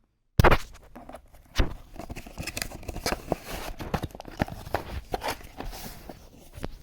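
Packaging being handled during an unboxing: a busy, irregular run of crinkles, taps and clicks, starting abruptly just under half a second in.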